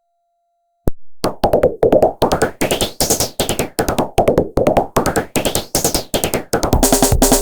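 A Samsung SGH-E800 polyphonic ringtone starting after a short silence and a click: an electronic drum-machine pattern of fast sharp hits, with a synthesizer sweep that rises and falls about once a second.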